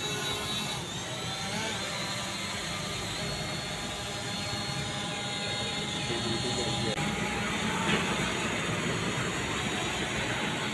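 UPAir ONE Plus 4K quadcopter drone flying overhead, its propellers giving a steady whine of several tones.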